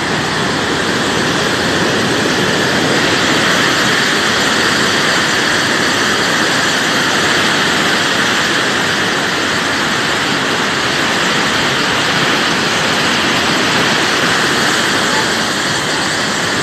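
Swollen, muddy river in flood rushing through and past the collapsed Munda Headworks: a loud, steady roar of turbulent water.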